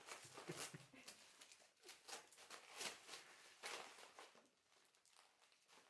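Faint, intermittent rustling and crinkling of packaging being handled, in a series of short scratchy bursts that fade out toward the end.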